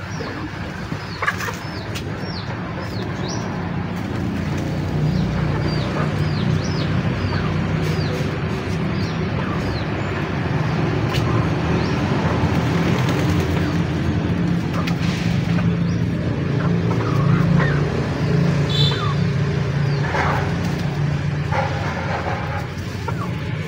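Small birds chirping with many short, quick high notes, over a steady low hum that grows louder a few seconds in.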